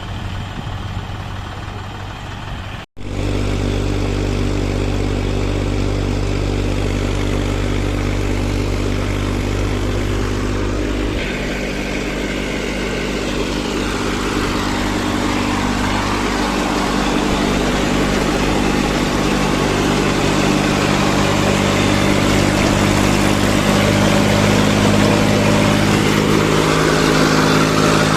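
Heavy diesel machinery engine running steadily. The sound cuts out for an instant about three seconds in, and the engine note shifts around eleven seconds in.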